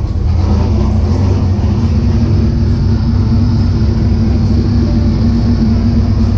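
Turbocharged LS-swapped V8 of a Chevy C10 idling steadily just after being started, a loud, even low rumble.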